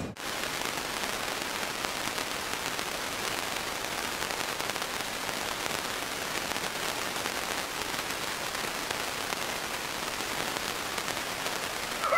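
A steady, even hiss with no voice or tones in it, like rain or wind noise, starting abruptly at a cut.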